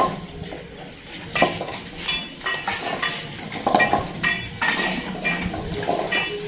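Stainless steel dog food bowls clanking and ringing as they are handled and set down on a tiled floor, about five metallic clangs spread over a few seconds.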